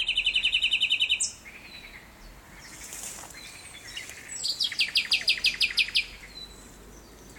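Nightingale singing: a fast trill of rapidly repeated notes at the start, then, after a short pause of softer notes, a second phrase of about a dozen loud repeated notes.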